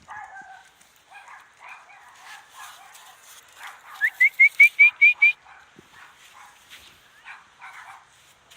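Dogs barking and yipping in the distance, with a quick run of about seven short, high, rising squeaks about halfway through.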